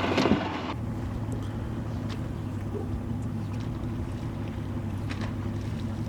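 A boat's motor running with a steady hum, after a brief louder rush of noise that cuts off under a second in.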